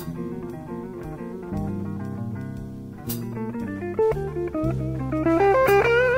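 Live blues band playing an instrumental stretch: a lead guitar plays runs of single notes over bass guitar and a drum kit, with a cymbal crash about three seconds in. The guitar line climbs to its loudest point near the end.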